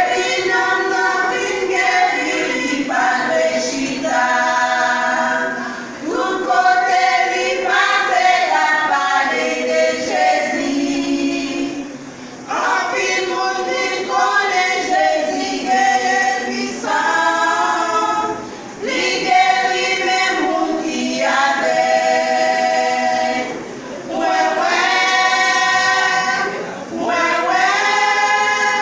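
A gospel vocal group singing a Haitian Creole hymn unaccompanied, several voices in harmony. The song comes in long phrases with short breaks between them.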